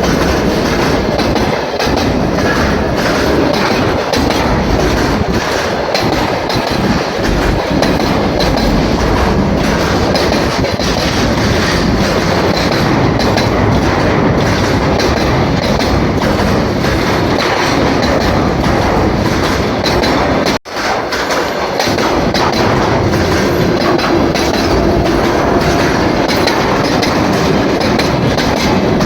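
Freight train wagons rolling past, their wheels clattering steadily over the rail joints. The sound drops out for an instant about two-thirds of the way through.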